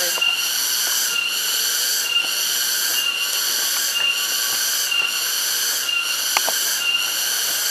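Cicadas (kinjeng tangis) calling in a shrill, high buzzing chorus that pulses evenly just under twice a second.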